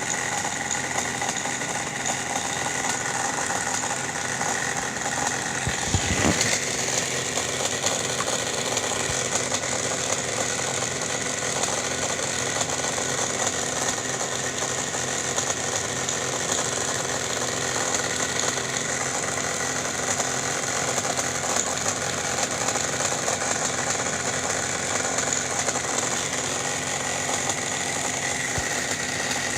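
Air conditioner running with its cover off, the compressor and blower fan making a steady mechanical hum, with a single knock about six seconds in.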